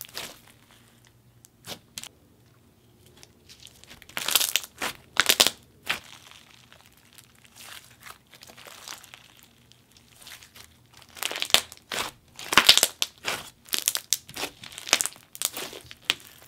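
Hands squeezing and kneading a thick slime full of small add-ins, making irregular bubble pops and crackles. Scattered at first, bunched about four to six seconds in, then coming thick and fast from about eleven seconds to near the end.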